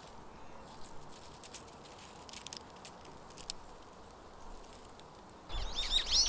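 Faint dry crackles and clicks as fingers handle a twig of dry maple seeds and a silk-moth cocoon. About five and a half seconds in, a small bird starts a quick series of chirps over a low rumble of wind on the microphone.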